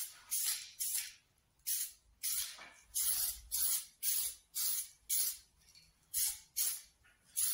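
Aerosol spray can of white primer hissing in short spurts, about two a second, as a coat of primer is applied to a bicycle frame in quick passes.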